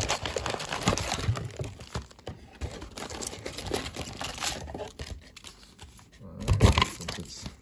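Foil booster packs and a cardboard booster box rustling and crinkling as the packs are lifted out of the box and stacked on the table, with small clicks throughout. A louder bump comes near the end.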